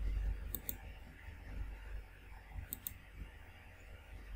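Computer mouse clicks: two quick double-clicks about two seconds apart, over a low background rumble.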